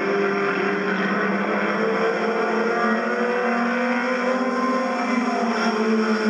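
Several four-cylinder Dash-class stock cars racing at speed. Their engines overlap in a continuous drone whose pitch gently rises and falls.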